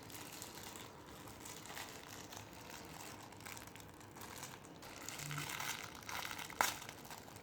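Faint crinkling of a plastic wrapper as a small packet is handled and opened, with one sharp click near the end.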